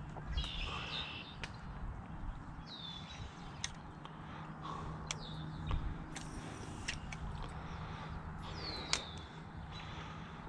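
A bird calling outdoors, about four high calls a few seconds apart, each a quick downward slur that levels off and holds briefly. There are a few sharp clicks in between.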